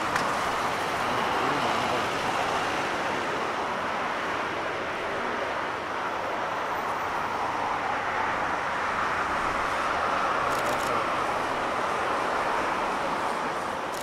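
Airbus A380's four jet engines at takeoff thrust, a steady rushing jet noise that eases slightly near the end.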